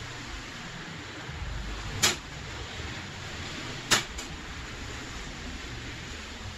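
Two sharp knocks about two seconds apart, the second followed closely by a lighter tap, from painting materials being handled on a tabletop, over a steady hiss of room noise.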